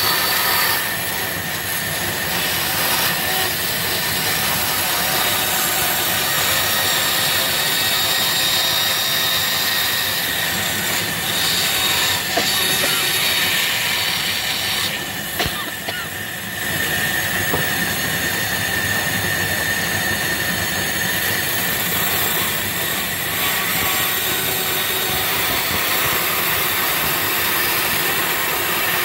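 Bandsaw running and cutting through plywood, a steady whine over the noise of the blade in the wood. The sound briefly drops about halfway through, then the cutting goes on.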